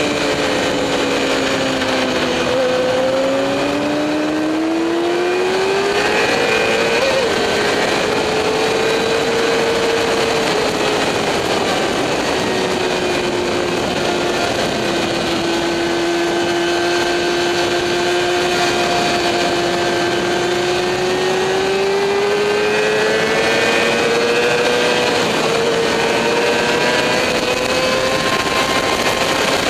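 Motorcycle engine running hard on a race track, its pitch dropping and climbing slowly as it slows and accelerates again, twice over the stretch.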